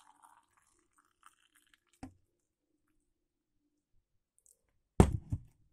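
Mostly quiet kitchen sounds: a faint click about two seconds in, then a sharp double knock of something hard against the table near the end.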